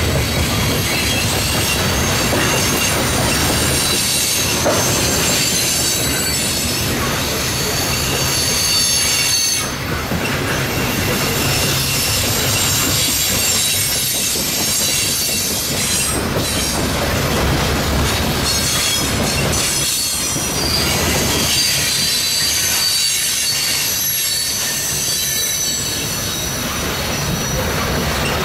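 Cars of a loaded coal train rolling past, a steady rumble of steel wheels on rail with high-pitched wheel squeal running over it.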